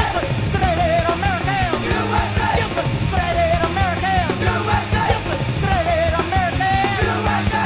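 Punk rock recording playing: a dense, loud band mix of guitars, bass and drums with a shouted vocal line over it.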